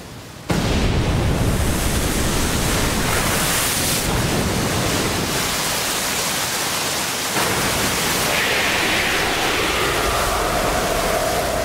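Steady rushing of a waterfall, then about half a second in a sudden loud rush of wind and water that holds steady: an anime battle-clash sound effect.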